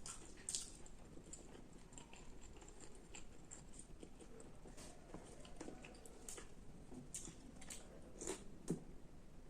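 Faint close-up chewing with scattered short wet mouth clicks, someone eating.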